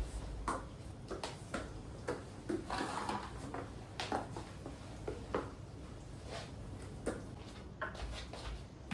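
Irregular light clicks and taps of kitchen utensils and dishes being handled, a few each second.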